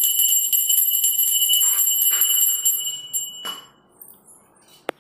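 Puja hand bell rung rapidly and continuously during an aarti, a bright, steady high ringing that stops about three seconds in. A couple of light knocks follow near the end.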